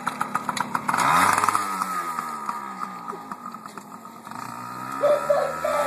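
Small Yamaha youth dirt bike engine revving as the bike pulls away, its pitch climbing and dropping with the throttle, loudest about a second in and then fading as the bike rides off.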